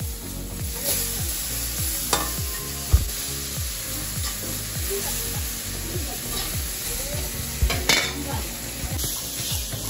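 Chopped tomatoes sizzling and being stirred in hot oil in an iron wok over a wood fire, with a few sharp clicks along the way.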